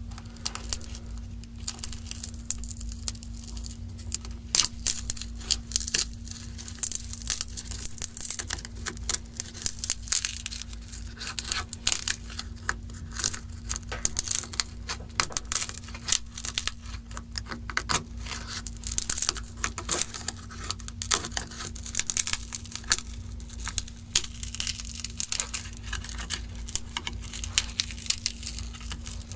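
Samsung Galaxy S3 screen being pried off the phone's frame with a pick, its 3M adhesive peeling away in many short crackles, tearing sounds and small clicks.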